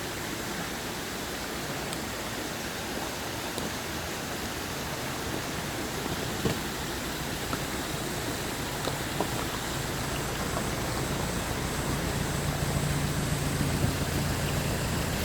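Mountain valley stream rushing steadily. A faint low hum comes in about twelve seconds in.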